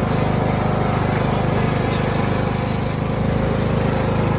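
Riding lawn mower's engine running steadily while the mower is driven.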